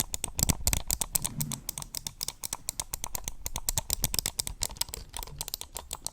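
Computer keyboard being typed on fast, a dense run of key clicks, many a second.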